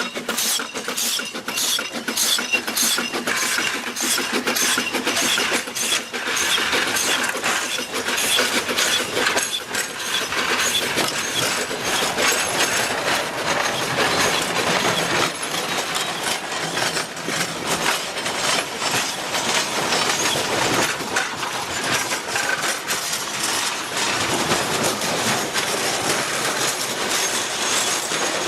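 C2 narrow-gauge steam locomotive working, its exhaust chuffing in a quick regular beat at first, then blending into a dense continuous rush of steam and running noise.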